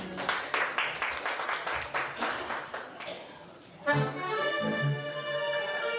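Audience applause for about four seconds, then an accordion orchestra strikes up a march with a sudden full chord and plays on.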